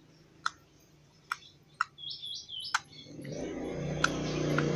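Sharp wet clicks and pops of slime being squeezed close to the microphone, four over the first three seconds, with three quick high chirps around two seconds in. From about three seconds in a louder rushing noise with a low hum builds up.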